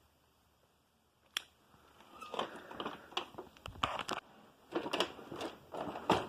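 Handling noise: a sharp click, then irregular clicks, taps and light knocks of hard plastic being moved and handled.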